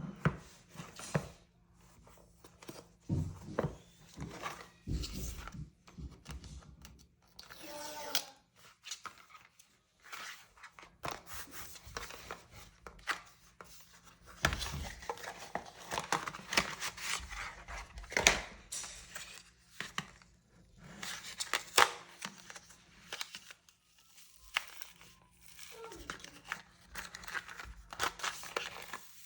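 Packaging being torn open and crinkled by hand, with irregular sharp clicks and rustles of handling.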